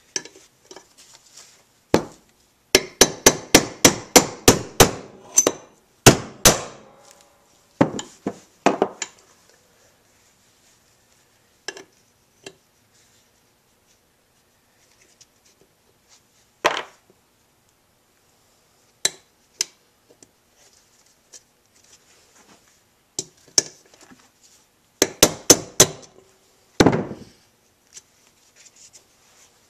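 Hammer tapping a ball bearing that went in crooked down into its bore in the heated aluminum crankcase of an '06 Kawasaki KX250F, sharp metallic knocks. A quick run of taps a few seconds in, then single taps spaced out, and another quick cluster near the end.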